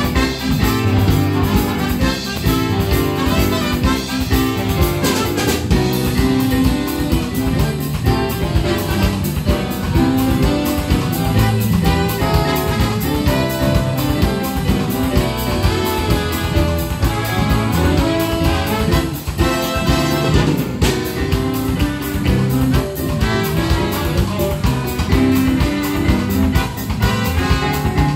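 Live jazz big band playing a swing-style tune, with a trumpet leading over a saxophone section, keyboard and drum kit.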